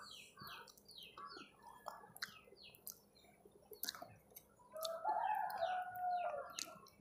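Small birds chirping over and over in quick, short, falling notes, with a longer drawn-out chicken call about five seconds in and a few faint clicks.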